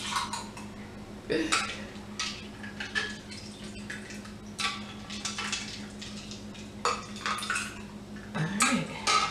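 Ladle dipping into a glass punch bowl of punch with ice and frozen fruit and pouring into a small glass: a string of short clinks and brief splashes.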